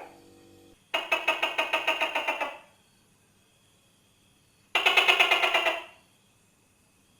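Tokay gecko giving two rapid rattling trills, each a fast run of about ten clicks a second: the first starts about a second in and lasts about a second and a half, the second comes near the two-thirds mark and lasts about a second.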